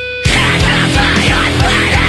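Heavy post-hardcore rock music: a lone held note, then the full band with drums and guitars comes in loudly about a quarter second in.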